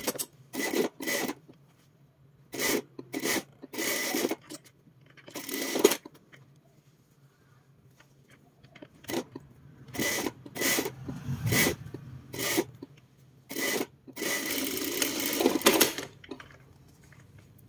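Sewing machine stitching in short runs that start and stop, one longer run near the end, over a steady low hum.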